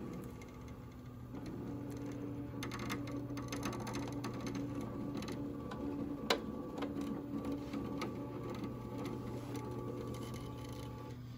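SWF MAS-12 embroidery machine running: a steady low hum with a motor tone that starts and stops several times, and scattered mechanical clicks, one sharp click about six seconds in.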